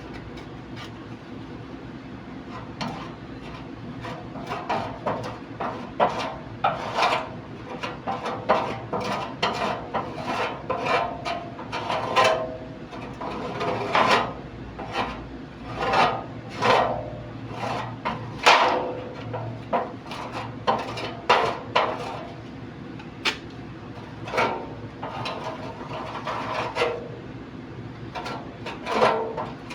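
Irregular knocks and scraping from hand work on parts being restored, densest in the middle and again near the end, over a steady low hum.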